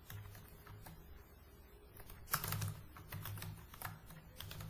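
Computer keyboard keys clicking as a sentence is typed. The keystrokes are faint at first and come in an uneven, quicker run from about halfway in.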